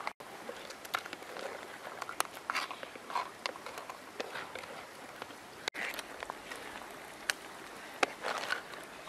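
Crab curry cooking in a wok over a wood fire: a steady sizzling hiss with scattered sharp clicks and scrapes from the spatula stirring the crab pieces.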